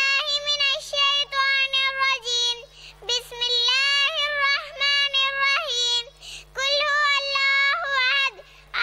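A young girl chanting in a high, sustained voice, holding long, nearly level notes in three phrases with short pauses for breath.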